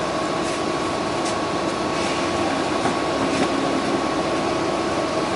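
Steady hum inside a New Flyer XD60 articulated diesel bus standing at a stop, with its engine idling and the air conditioning running, and a few faint clicks.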